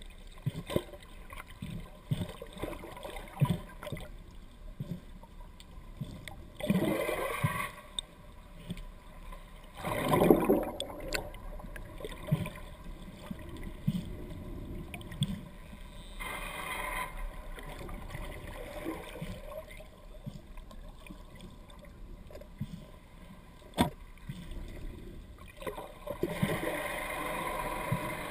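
Underwater sound heard through a GoPro's waterproof housing: a muffled rush of water with frequent soft knocks, and several louder swells of rushing, bubbling water. A single sharp click comes near the end.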